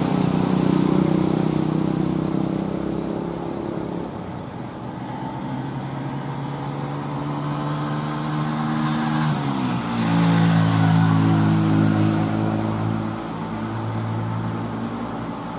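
Mitsubishi Canter dump truck's diesel engine labouring up a steep climb with a load of steel roof tiles. Its note slides down about nine seconds in, then it runs louder for a few seconds before easing off.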